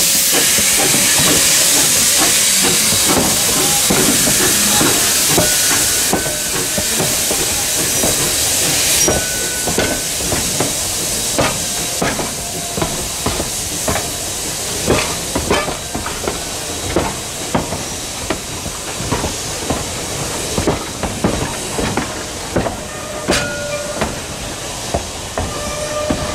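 Steam hissing from a 1920-built narrow-gauge 4-6-0 steam locomotive as it pulls away, loud for the first several seconds and then easing off. The passenger cars follow, rolling past with a steady run of wheel clicks and clunks over the rail joints and a few brief squeaks.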